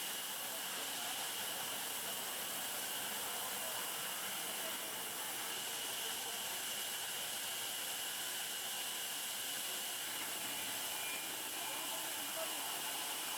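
Steady hiss with a constant high band in it, unchanging in level throughout.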